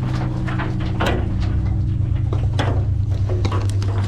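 Irregular knocks and rattles of a hoist barrel being lowered down a mine shaft, over a steady low machine hum.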